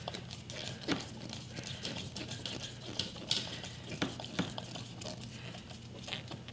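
Quiet handling sounds: scattered light clicks and taps of a screwdriver and heavy power cables being moved about at the plug opening.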